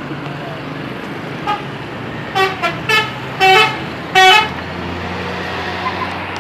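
Tour bus telolet horn sounding: a faint short blip, then four loud toots in quick succession, the last two held longer. The bus engine runs underneath, settling into a steady low hum once the horn stops.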